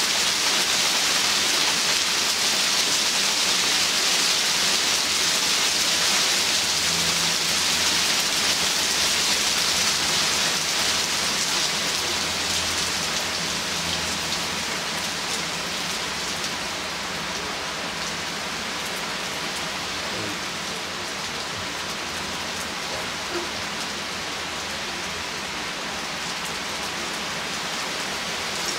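Heavy downpour of rain and hail in a hailstorm: a dense, steady hiss of drops and hailstones hitting the lawn, road and leaves, easing a little about halfway through.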